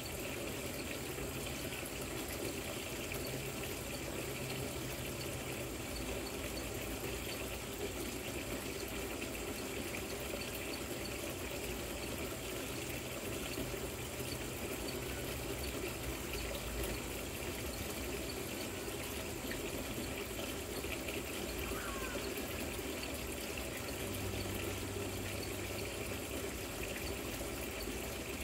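Water trickling and splashing steadily down a small rock fountain.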